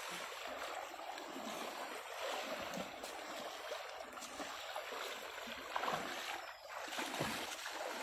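Rushing water of a swollen, muddy stream, a steady hiss, with a few splashes in the second half as a man wades and hauls a cast net through the current.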